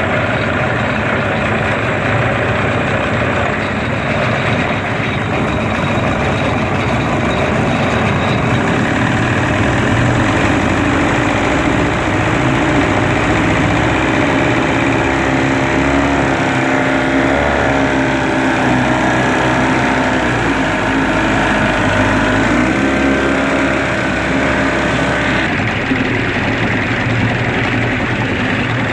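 Tohatsu 25 hp outboard motor running with its cowling off in a test tank, the propeller churning the water. The engine note wavers up and down in the middle, then settles.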